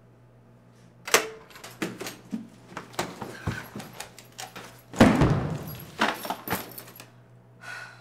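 Keys and locks clicking and rattling as an apartment front door is unlocked and opened, starting with a sharp click about a second in, then a louder bump and scrape about five seconds in, followed by a few more clicks.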